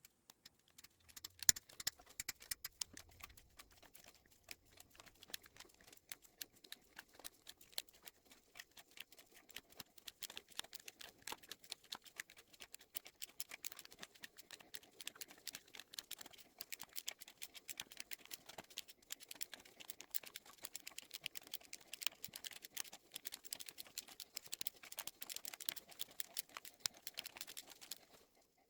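Ratchet wrench clicking in quick, irregular runs as the cam carrier bolts on a Yamaha R1 engine are backed off a little at a time, easing the valve spring pressure on the carriers evenly.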